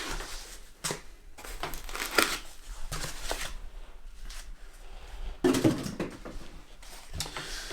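Handling noise while the compressor and its packaging are unpacked: irregular rustling and crinkling with a few light clicks and knocks.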